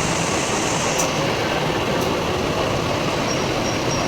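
Steady rumble of a running truck, an even noise with no clear rhythm and a couple of faint clicks.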